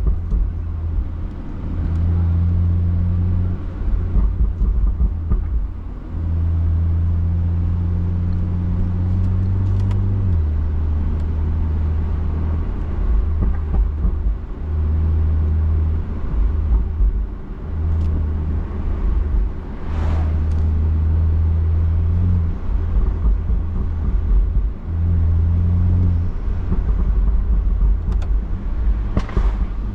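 BMW F30 335i's tuned, catless turbocharged straight-six heard from inside the car while driving: a low exhaust drone held steady for a few seconds at a time, its pitch creeping slightly up, broken by rougher rumbling stretches in between.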